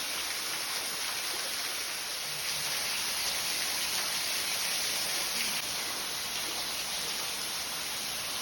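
Steady rush of water from the Tukad Cepung waterfall and its stream: an even hiss that neither rises nor falls.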